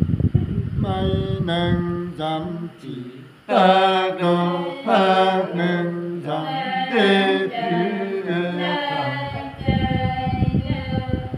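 Unaccompanied male folk singing in a chant-like style: long, wavering held notes through the middle, with faster, rhythmic passages near the start and near the end.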